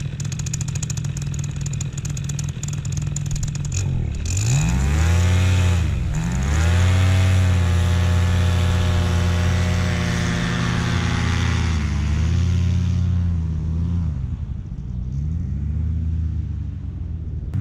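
Nitro 200 paramotor engine and propeller on a trike, running low for the first few seconds. About four seconds in it is throttled up to full power for a taxiing takeoff run while the wing is pulled overhead, with a brief dip in pitch just after. Near the end it is throttled back and up again several times.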